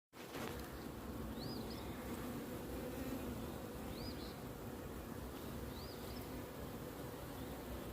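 Honey bees buzzing steadily around an open hive, a dense hum from the colony. A faint short chirp repeats about every two seconds.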